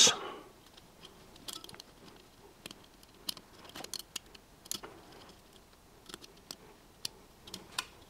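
Faint, scattered small clicks and scrapes of a carbon brush being handled and slid back into its holder on a Bosch, Neff or Siemens washing machine motor.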